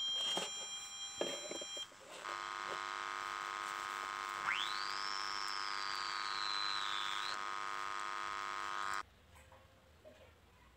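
Steady buzzy electronic tone from the loudspeaker of a home-built 6283 IC amplifier, with a whistle-like tone that sweeps up sharply about four and a half seconds in and then slowly sinks; the sound cuts off suddenly near the end.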